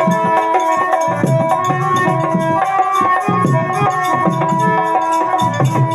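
Instrumental music: held melody notes over a steady drum rhythm.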